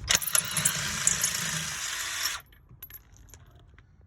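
Snap-on cordless impact wrench running for about two and a half seconds with a hard metallic rattle as it drives a car jack up, then cutting off suddenly, followed by a few light clicks.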